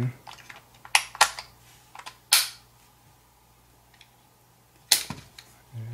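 Sharp plastic clicks and snaps as a 10-round Ruger magazine is seated into, and handled in, the polymer magwell of a USFA Zip .22 LR pistol. There are two clicks about a second in, a louder, longer snap a little later, and one more sharp click near the end.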